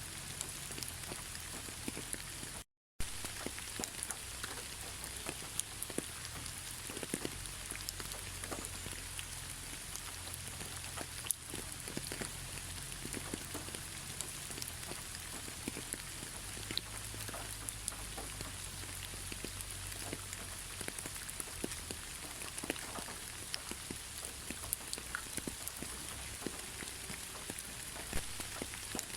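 Steady rain falling, with many separate drops ticking on a surface over an even hiss. It cuts out completely for a moment about three seconds in.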